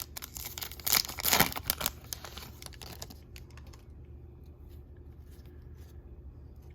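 A foil pack of Panini Select football trading cards being torn open, its wrapper rustling and crinkling in quick strokes over the first three seconds, loudest about a second in.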